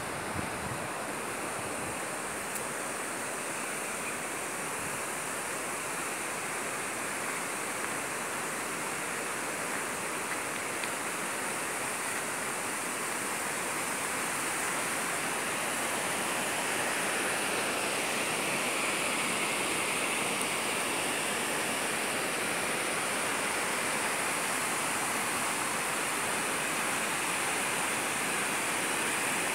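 Rain-swollen river water rushing over rocks past a low concrete causeway, a steady rushing that grows a little louder in the second half.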